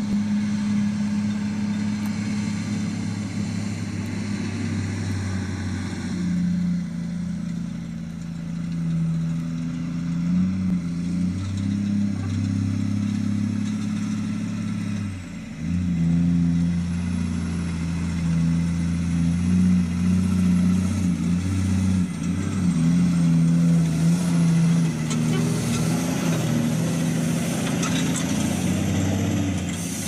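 Diesel engine of a loaded logging truck running under load as the truck pulls away and drives on, a steady low drone whose note breaks off briefly about halfway through and then comes back.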